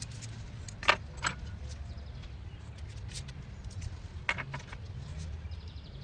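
A handful of sharp metallic clinks and rattles over a low, steady rumble.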